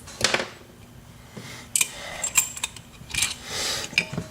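Small metallic clicks and short scrapes from handling a euro profile lock cylinder and its picking tools, with a brief rubbing sound about three seconds in.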